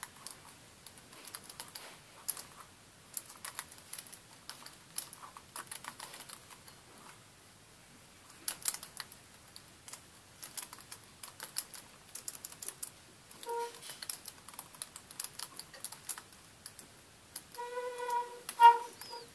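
Computer keyboard being typed on, keys clicking in quick irregular runs with a short pause partway through. A brief pitched tone sounds twice, the second time near the end and louder.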